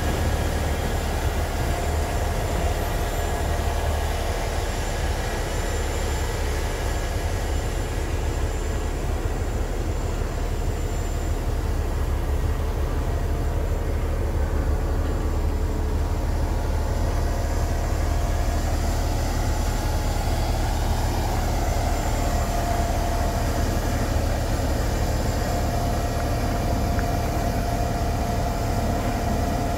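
Semi-tractor's diesel engine idling with a steady low rumble.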